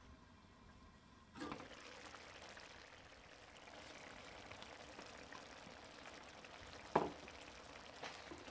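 Tomato chickpea curry simmering and bubbling in a stainless steel pan, starting suddenly about a second and a half in, while chopped coriander is tipped in and stirred. A single sharp knock against the pan about seven seconds in.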